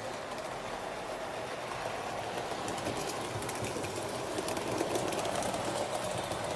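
Model railway train running along the track: a steady whirr of its small electric motor and wheels with faint clicking, growing a little louder after about two seconds.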